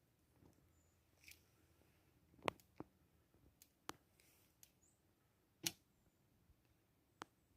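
Near silence broken by a handful of short, sharp clicks and ticks, the loudest about two and a half seconds in and again near six seconds in.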